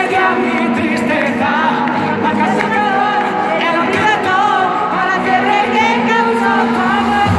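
Live pop concert heard from an arena's stands: singing over the band, with many wavering voices and the bass held back. Right at the end the bass comes back in.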